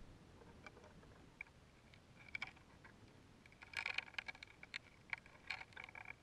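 Faint scattered ticks and clicks from a high-altitude balloon's payload string, heard through a GoPro housing. There is a short cluster of sharp rattling clicks about two seconds in, and a louder, denser run of them from a little past halfway to near the end.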